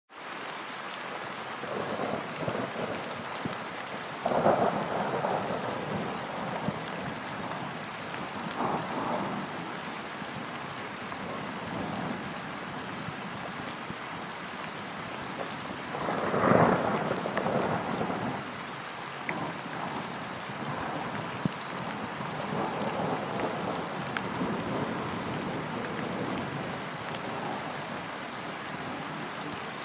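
Steady rain falling, with rumbles of thunder rolling through. The loudest come about four seconds in and again about sixteen seconds in, with fainter ones between.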